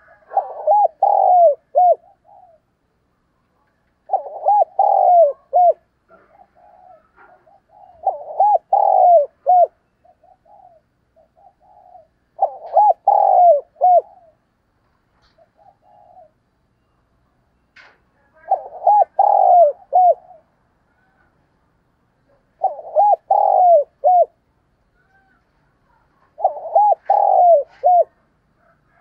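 Spotted dove cooing: seven phrases of several arching coos each, about one every four seconds, with fainter short notes in between. A full cooing call of the kind used to provoke other doves into answering.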